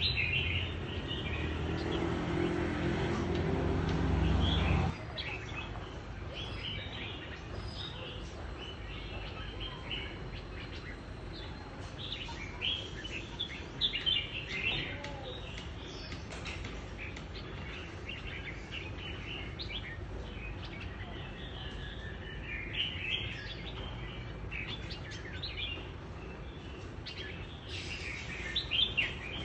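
Caged red-whiskered bulbuls chirping and singing in short, repeated phrases. A low, steady hum runs under the first five seconds and stops abruptly.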